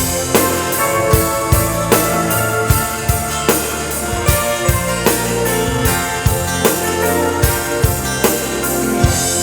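Live gospel band playing an instrumental passage: sustained keyboard chords and bass over a steady drum-kit beat.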